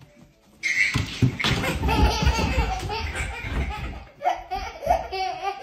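Laughter breaking out suddenly about half a second in and going on in bursts.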